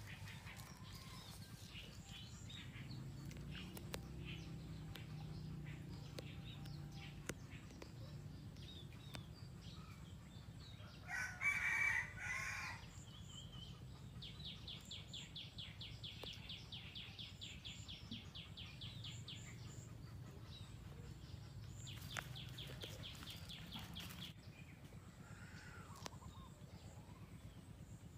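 A rooster crows once, partway through, over a quiet rural background. A rapid, evenly pulsing high trill follows for several seconds and comes again briefly later.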